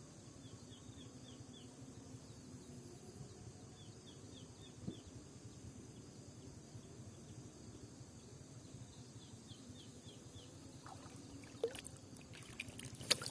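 Faint outdoor background of low, steady rumbling noise, with a short run of high chirps heard three times, a single knock about five seconds in, and a few sharp clicks near the end.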